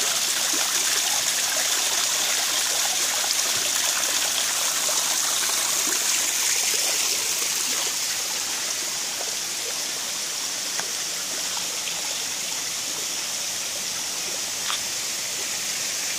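Shallow water running over rocks and stones: a steady rushing hiss that turns a little softer about halfway through.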